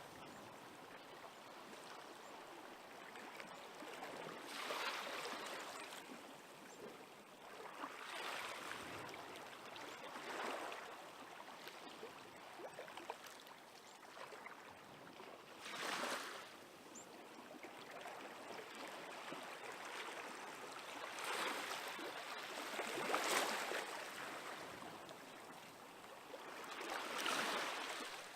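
Small waves on a calm, glassy sea breaking gently on the shore. Each soft wash swells and fades, one every few seconds.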